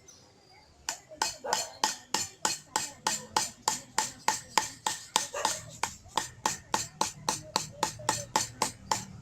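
Hammer striking sheet metal in a steady run of about four blows a second, shaping a small patch panel for a VW Beetle door pillar.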